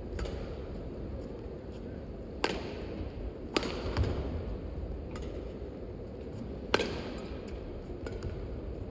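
Badminton rally: rackets striking the shuttlecock about every one to one and a half seconds, six sharp cracks, three loud and three fainter, over a steady low background hum.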